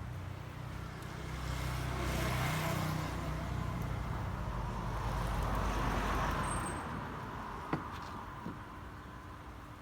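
A road vehicle passing, its rumble swelling and then fading over several seconds. A single sharp click near the end.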